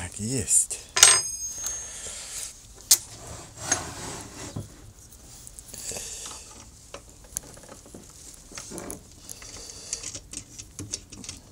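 Metal parts clinking and knocking as an angle grinder is handled and fitted into a steel mounting bracket. There is one loud clank with a brief metallic ring about a second in, then scattered small knocks and scrapes.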